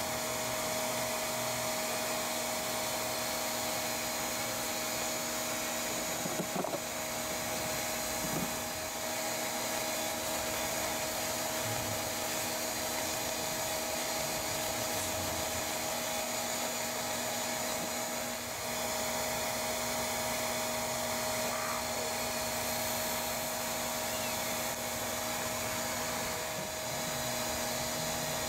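Bee vacuum's motor running steadily, a constant whine with rushing air, as bees are drawn off the comb. A couple of brief knocks about six to eight seconds in.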